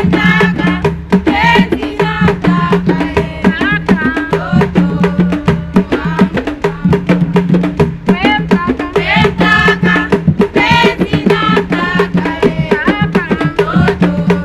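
Tufo dance music from Mozambique: singing over rapid, steady drumming.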